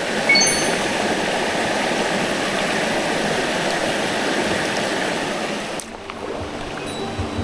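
Rushing mountain stream, a steady wash of water, with a short high chiming sound just after the start. About six seconds in the water cuts off and quieter music with held notes begins.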